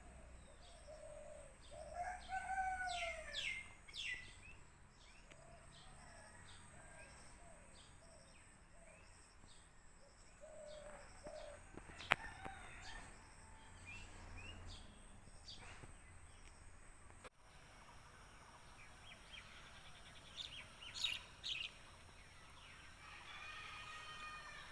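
Outdoor birdsong: a rooster crowing about two seconds in and more faintly near the end, over scattered high chirps of small birds.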